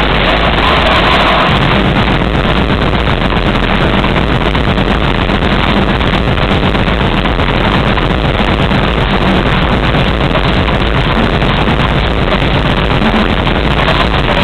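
Loud, steady, distorted din of a live stage show: amplified sound and audience noise overloading a handheld camera's microphone, with no words or clear beat standing out.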